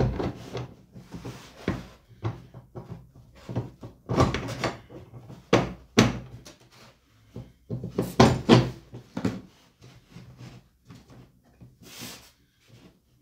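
Irregular knocks, rubbing and scraping as hands work nuts onto the egg-turning rack's axle rod inside a styrofoam incubator box, with metal parts bumping against the box, in short clusters every couple of seconds.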